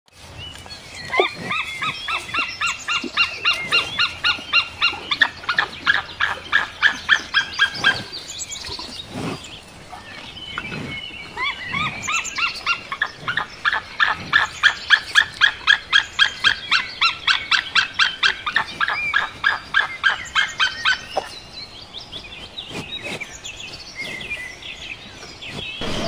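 White-tailed eagle calling: two long bouts of rapid yelping notes, about five a second, with a short pause between them.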